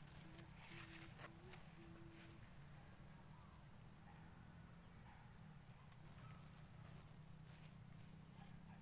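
Near silence with faint field insects: a high, rapid, even chirping that breaks off and resumes a few times over a steady high hum.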